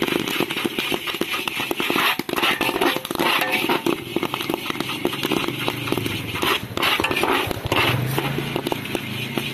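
Popcorn kernels popping in hot sand in an iron kadhai while a perforated metal scoop stirs and scrapes through the sand: a dense, irregular crackle of pops over gritty scraping.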